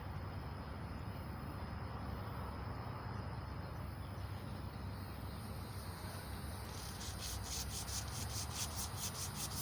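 Emery cloth strip sawed back and forth around a small-block Chevy 350 crankshaft journal, a steady rasping rub. In the last few seconds it turns into quick, even strokes, about four a second.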